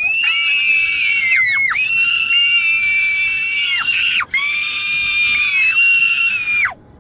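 Young girls screaming together, long high-pitched excited shrieks of "yo!" in three long held screams with short breaks between, stopping just before the end.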